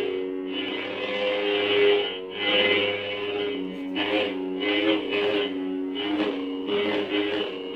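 Lightsaber sound font (Kyberphonic's Torbin font) humming, with repeated swing swells as the blade is moved, the hum bending in pitch with each swing.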